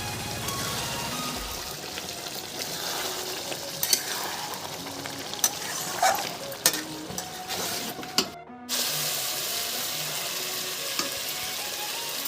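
Chicken curry frying and sizzling in oil in a pan while it is stirred, with a few sharp clinks of the spoon against the pan. The sound drops out briefly a little past the middle.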